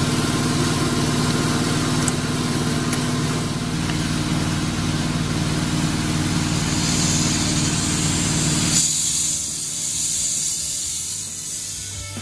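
Compressed air rushing out of an IBIX abrasive blasting gun with its trigger held, a loud steady hiss over a low steady hum. About nine seconds in, the low part drops away and a thinner hiss continues.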